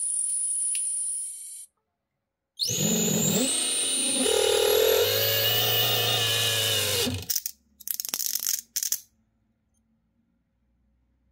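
An overvolted brushless outrunner motor with a two-blade propeller spins up with a loud whine that climbs steadily in pitch. It stops abruptly after about four and a half seconds, followed by a few short sputtering crackles as the motor fails and burns out, giving off smoke. Before it starts, the spinning disc in an overvolted optical drive whines steadily, cut off after about a second and a half.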